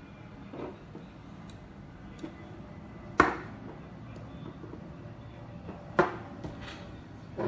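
Magnetic metal pieces of a polar pen clicking together as they are handled: two sharp clicks, about three seconds in and about six seconds in, with a few fainter ticks between.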